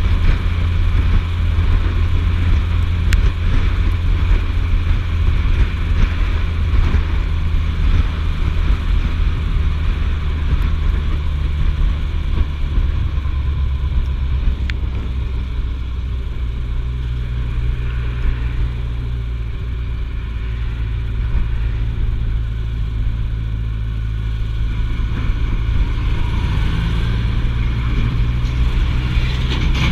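Suzuki GSF1250S Bandit's inline-four engine running steadily at road speed under wind and road noise. Its note drops lower about halfway through as the bike slows.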